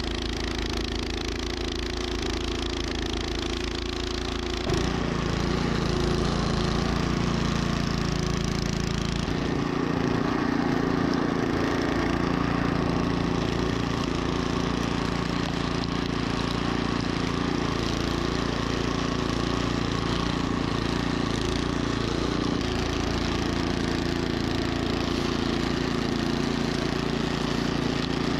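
Troy-Bilt snowblower engine running steadily, its note shifting and getting a little louder about five seconds in, then changing again about nine seconds in.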